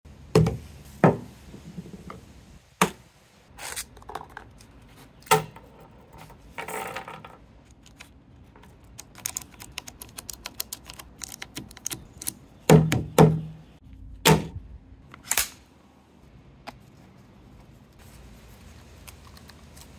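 Gun handling of a .22 LR HK MP5 on a wooden table: sharp clicks and knocks, then a quick run of small clicks as .22 LR rounds are pressed into its magazine, then several louder knocks. No shots are fired.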